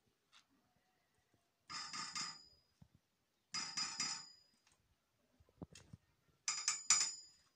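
Steel parts clanking and clattering in three short bursts about two seconds apart, each leaving a high metallic ring that fades.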